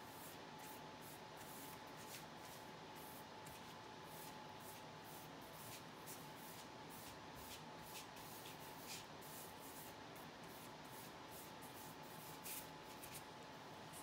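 Hands sliding and smoothing a sheet of paper on a tabletop: faint, irregular scuffs and light ticks, over a faint steady high hum.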